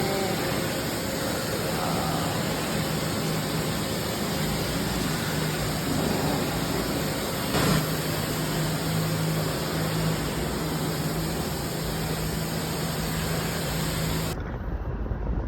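Machinery in a metal fabrication shop running with a steady loud hiss over a low hum, with a single click about halfway through. The hiss stops abruptly near the end.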